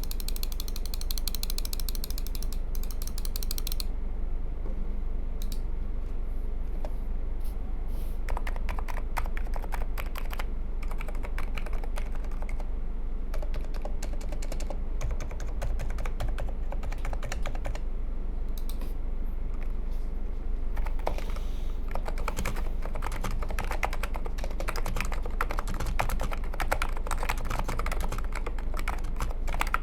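Typing on a NIZ Plum x87 keyboard with electrostatic capacitive, Topre-clone switches in a plastic case with an aluminium plate. Keystrokes come in quick runs, sparse for a while in the middle, then dense and fast in the last third, over a steady low hum.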